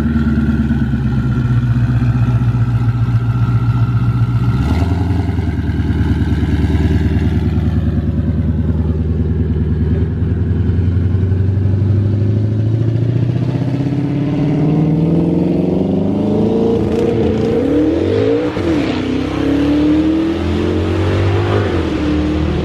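Twin-turbocharged Ford Mustang Shelby GT500 V8 rumbling deep and steady, then accelerating away, its pitch climbing for about ten seconds before rising and dipping a few times near the end as it revs through the gears.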